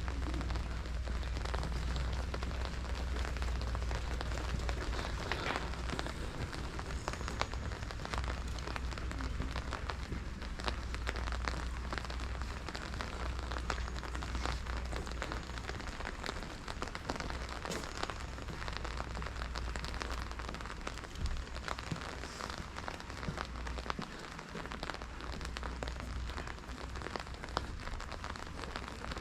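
Steady rain falling, a dense patter of small drop ticks over a continuous hiss, with a low rumble underneath that eases off about three quarters of the way through.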